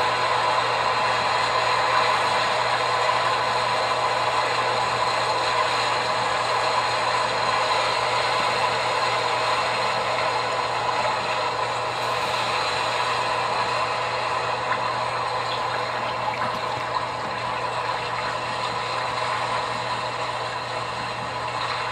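Steady machine hum with a constant low drone underneath, easing slightly toward the end.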